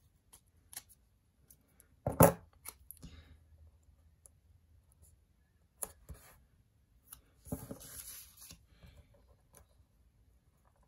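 Scissors snipping through sticker paper: a handful of separate sharp snips, the loudest about two seconds in, then a scratchy stretch of about a second near the end.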